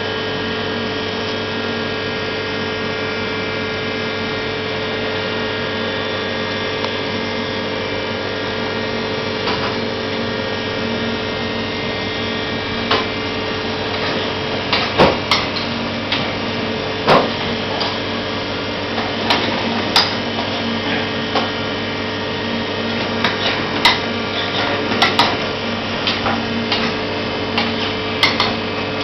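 A metal spoon or ladle knocking and scraping against metal pans on a gas range, with irregular sharp clinks and clanks from about halfway through, over a steady mechanical hum in the kitchen.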